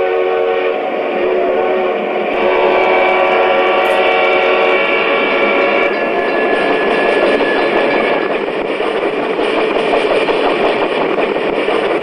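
Horn of a sound-equipped model diesel locomotive sounding in long held chords, shifting pitch once, for about the first five seconds. After that a steady, noisy rumble of the passing model train.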